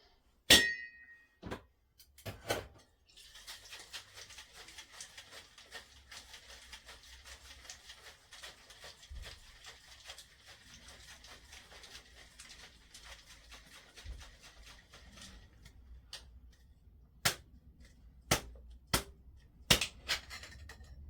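Cocktail shaker capped with a ringing clink, then shaken steadily for about twelve seconds in a dry shake, the juice and gin sloshing inside with no ice. A few sharp knocks follow near the end as the shaker is opened.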